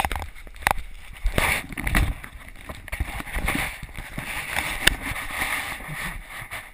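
Muffled movement noise from a GoPro Hero2 in its sealed housing as the wearer moves about: low wind rumble and rustling with scattered sharp knocks and bumps.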